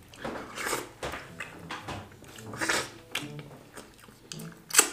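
Mouth sounds of people eating wheat fufu with okra and peanut soup by hand: irregular wet chewing and smacking, with a sharper, louder smack near the end.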